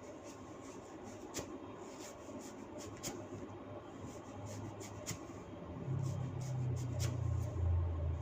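Hands rubbing and pulling through long hair in a hair-cracking head massage: a soft rustle with a few scattered sharp cracks. A low rumble builds from about halfway and is loudest near the end.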